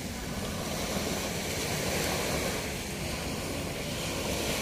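Sea waves washing gently onto a beach, a steady wash with wind rumbling on the microphone.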